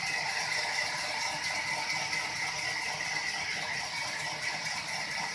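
Sawmill machinery running with a steady, continuous mechanical rattle.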